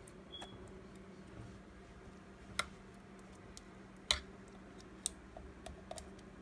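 Several short sharp clicks and light knocks spaced irregularly, the loudest about four seconds in, over a faint steady low hum.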